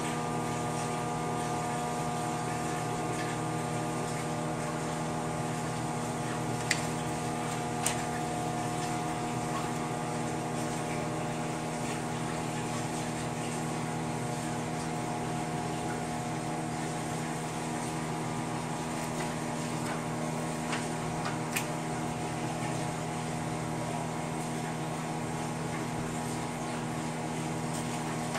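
Microwave oven running, a steady hum with several fixed pitches, as it heats plastisol clear coat; a few light clicks now and then.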